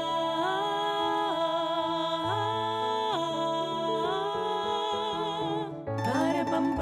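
Music: a slow melody of long held notes that glide from one pitch to the next with light vibrato, over low bass notes. About six seconds in it gives way to busier, quicker playing like plucked strings.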